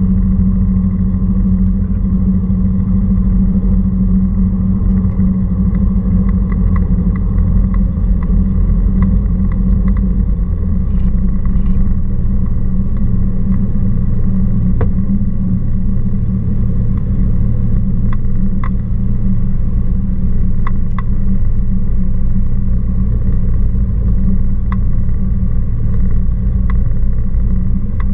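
Cessna 172R Skyhawk II's four-cylinder Lycoming engine and propeller running at low power, heard inside the cockpit as a steady drone; its note drops lower about ten seconds in. A few light clicks sound in the second half.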